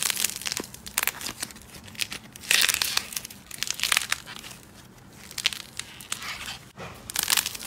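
Orange slime being squeezed and pulled apart by hand, giving irregular bursts of crisp crackling and tearing with many small clicks and pops.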